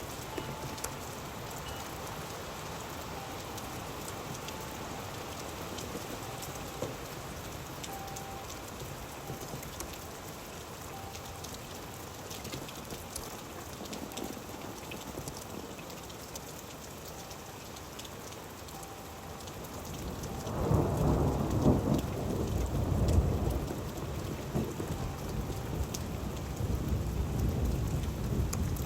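Steady rain with many small drops ticking, and about two-thirds of the way through a loud low thunder rumble rolls in and keeps going.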